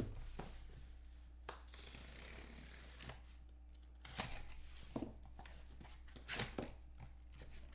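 Cardboard shipping case being opened by hand: its packing tape cut and torn, then the flaps pulled apart, giving scattered scrapes, tearing and cardboard knocks.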